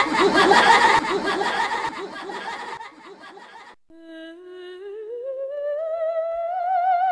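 A loud, dense jumble of rapidly warbling, chattering sound that cuts off abruptly about four seconds in. Then a single wordless, voice-like note with vibrato enters and glides slowly upward as a piece of music begins.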